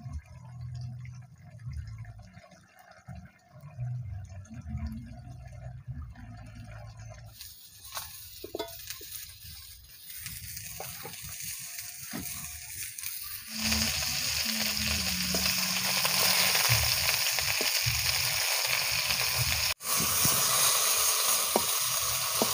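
Pieces of pointed gourd frying in hot oil in a wok: a faint sizzle starts about a third of the way in and becomes a loud, steady sizzle a little past halfway. Low thuds and handling noise come before it.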